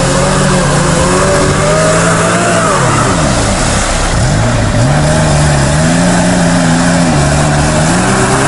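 An off-road vehicle's engine under load, its revs rising and falling. The pitch drops sharply about three seconds in, then climbs back and keeps varying.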